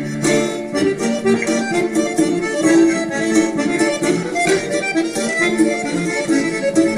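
Instrumental background music, playing steadily with sustained melody notes over a regular beat.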